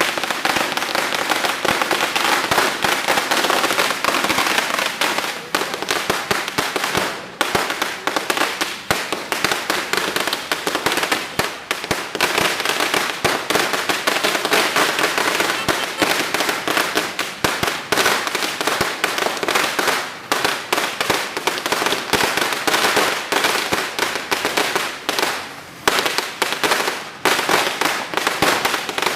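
A Sinturon ni Hudas (Judas' belt) firecracker string going off: a long string of small firecrackers cracking in rapid, near-continuous succession, with a few brief dips.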